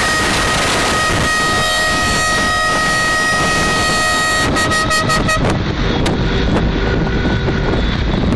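Car horns held on in a long steady blast that stops about five seconds in. Wind rushing over the microphone and road rumble from the moving vehicle can be heard throughout.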